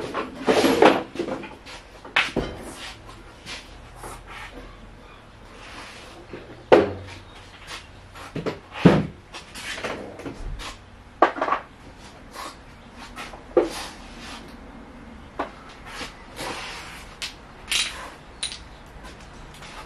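Scattered, irregular clanks, knocks and sharp clicks from hand tools and parts being worked loose while a car interior is stripped, with some rustling and scraping near the start.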